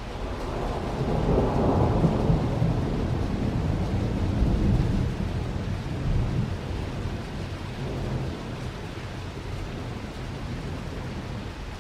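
Rolling thunder from an evening thunderstorm over steady rain. The rumble builds about a second in, stays loud for several seconds, then dies away, leaving the rain hiss.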